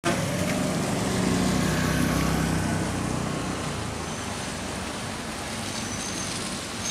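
Bus engine running as the bus moves slowly over a potholed road, its low engine note strongest in the first three seconds and then fading under steady road noise.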